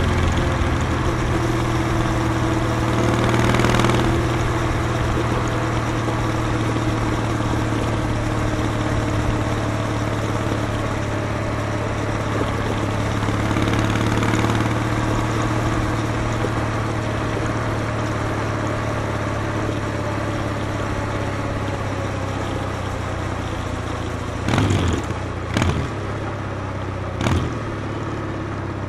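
Kawasaki W800's air-cooled 773 cc parallel-twin engine idling steadily through its exhaust, swelling slightly a couple of times. Near the end come three quick, sharp throttle blips.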